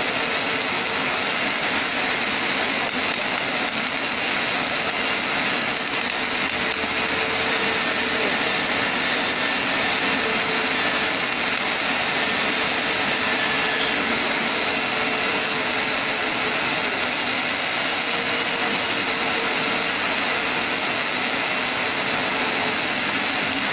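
Automatic double circumferential seam welder: two gas-shielded wire-fed welding torches arc-welding the girth seams of a slowly rotating steel tank at once, a steady even hiss with a faint hum under it.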